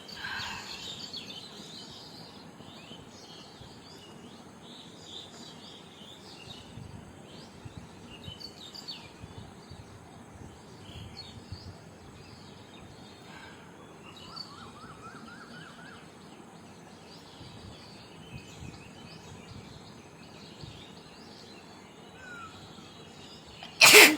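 Small birds chirping faintly outdoors through a quiet stretch, then one short, loud sneeze near the end: her seventh in a row.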